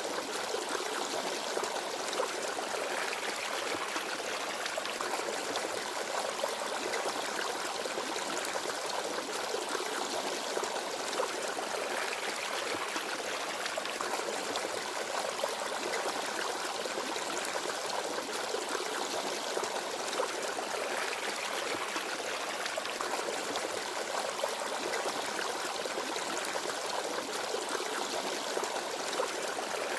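Forest stream babbling and trickling over rocks, a steady even rush of water.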